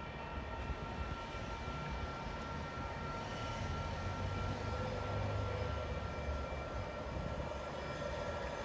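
Hi-rail pickup truck approaching along the railroad track: a steady low rumble that swells slightly and grows louder toward the end.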